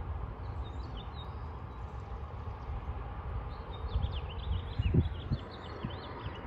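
Light wind rumbling and buffeting on the microphone, with a few gusty thumps about five seconds in. Small birds chirp briefly near the start and then in a quick run of high chirps through the second half.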